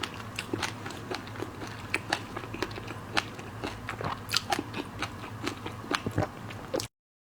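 Close-miked ASMR eating of seafood: irregular crisp crunches and wet chewing clicks. The sound cuts off abruptly to silence near the end.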